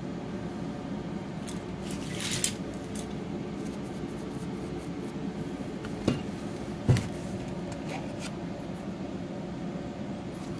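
Steady hum of an air conditioner or fan in a small room. Over it come a brief rustle with a click about two and a half seconds in, then two sharp knocks about six and seven seconds in, like tools being handled and set down on a work table.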